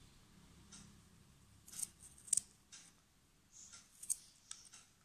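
Small knife slicing raw garlic cloves by hand against the thumb: a string of short, crisp cuts at an irregular pace, about one or two a second, the loudest near the middle.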